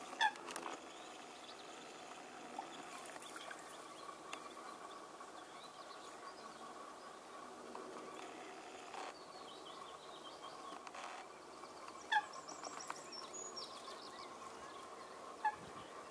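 Eurasian coots calling: three short, sharp calls, one right at the start, one about twelve seconds in and one near the end, with fainter high bird chirps in between.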